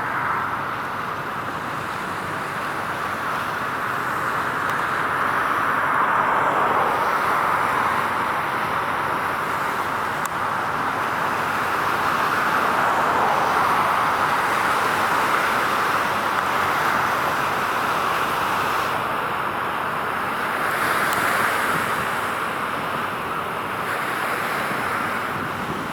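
Steady hum of distant road traffic, swelling and easing slowly as vehicles pass.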